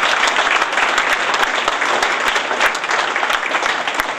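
Audience applauding: many people clapping at once, steady and loud.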